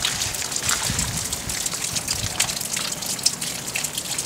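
Rain falling into standing water: a steady wash of running and splashing water with many small, sharp drips throughout.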